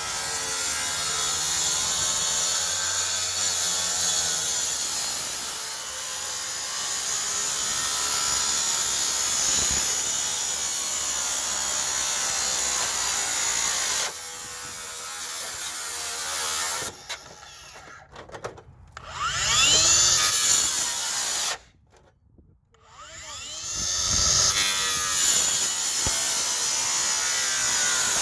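DeWalt cut-off saw running through a long steady cut, then stopping and starting for shorter runs, its motor pitch sweeping up and down as it spins up and winds down. It cuts out abruptly twice, with a brief silence between runs.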